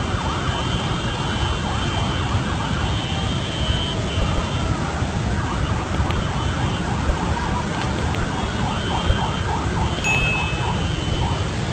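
Muddy flash-flood water rushing down a wadi: a loud, steady roar with a heavy low rumble. A high steady tone comes and goes over it several times.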